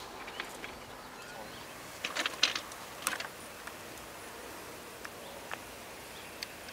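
Faint outdoor background with a few short, sharp clicks or taps: a cluster about two seconds in and one more just after three seconds.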